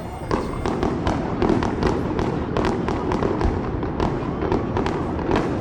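Fireworks going off in quick succession: many sharp bangs and crackles, several a second, over a continuous low rumble.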